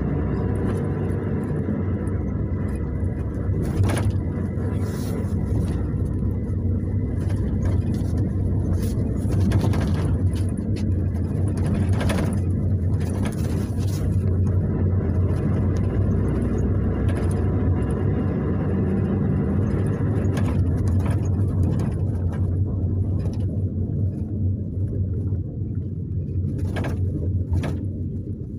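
Cabin of a Luidor-225000 (GAZ-322133) route minibus on the move: a steady engine and road rumble with scattered clicks and knocks from the body. The rumble quietens over the last few seconds.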